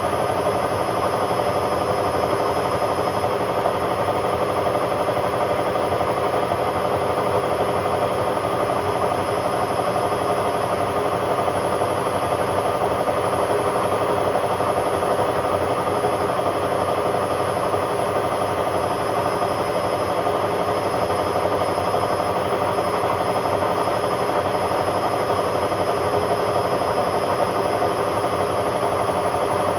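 Hotpoint Aquarius WMA50 washing machine spinning at a steady speed: a continuous motor and drum noise that holds level without pause.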